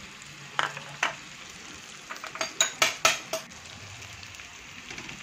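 Onions and tomatoes frying gently in oil in a kadai with a steady low sizzle, while a utensil knocks and clinks against the pan as it is stirred: two knocks about a second in, then a quick run of clinks between two and three and a half seconds in.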